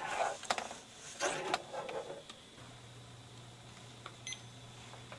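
Soft rustling and handling noises, then a steady low hum. About four seconds in, a cordless phone gives a short electronic beep with a click as its button is pressed to end the call.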